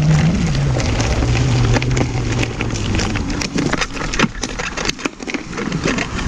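Ninebot One E+ electric unicycle's hub motor whining as it rolls along a rough forest trail, its pitch falling as it slows and fading out about halfway through. After that comes a quick run of clattering knocks as the wheel jolts over stones and roots.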